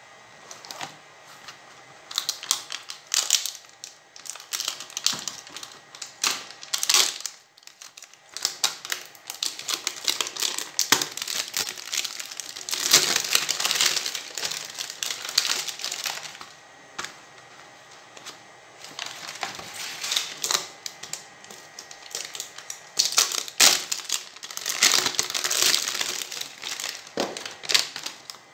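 Thin clear plastic packing film crinkling as it is handled around boxes, in irregular bursts with short quiet pauses.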